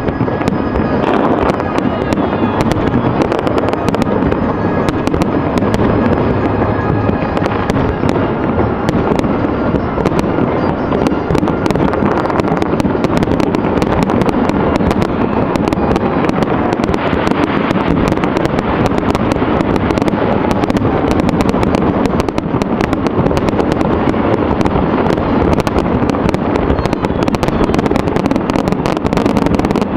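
Aerial fireworks display: a continuous, dense barrage of bangs and crackling from many shells bursting in quick succession, with no break.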